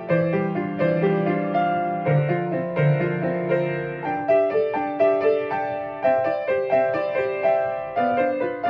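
Solo piano playing a slow, gentle original melody, with a flowing line of notes over held bass notes; the bass drops out about four seconds in, leaving the upper notes.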